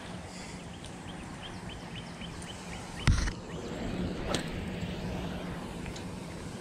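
Handling noise from a fishing rod and spinning reel: a loud knock about three seconds in and a second sharp sound a little over a second later, over a steady low hum. In the first half a bird chirps rapidly, about three times a second.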